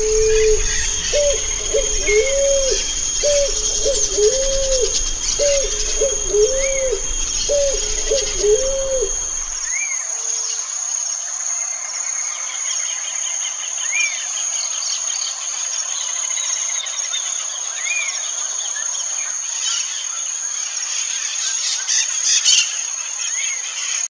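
A dove cooing: a low, repeated two-part coo, about seven phrases, with a low rumble beneath, which stops about ten seconds in. Throughout, a steady high insect drone runs, and a small bird gives short chirps every two seconds or so.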